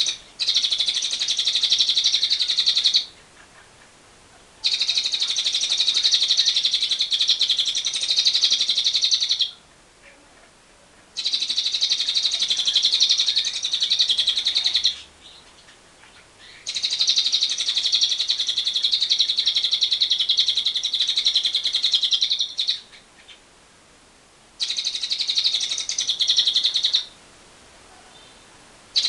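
Lovebird singing 'ngekek panjang', the long unbroken high-pitched chattering trill, in five rapid runs of about two to six seconds each, separated by short pauses.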